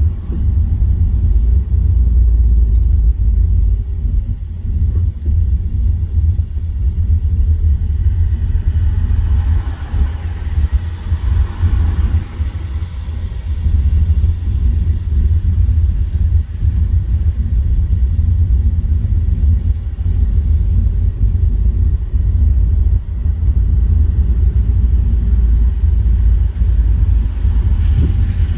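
Car cabin road noise at motorway speed on a wet road: a steady low rumble with tyre and spray hiss, swelling louder about ten seconds in.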